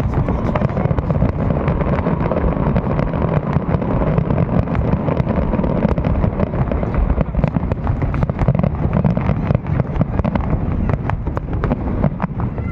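Fireworks going off continuously: a dense, unbroken run of sharp pops and crackles over a low rumble.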